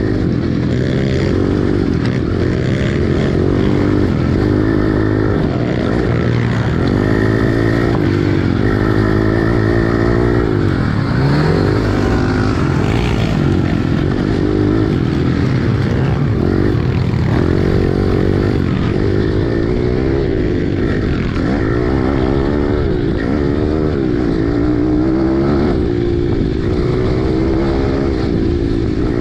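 Pit bike engine heard from on board while racing, revving up and dropping back again and again as the rider accelerates, shifts and rolls off for turns.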